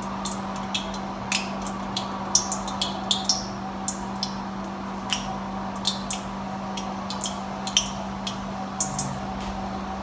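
Cooking oil heating in a deep stainless steel wok on a gas burner, giving irregular small crackles and ticks, a few a second, over a steady low hum.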